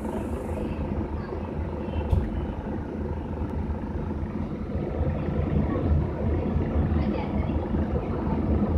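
Bus and traffic engines running in floodwater: a steady low noise with no clear pitch, and one brief knock about two seconds in.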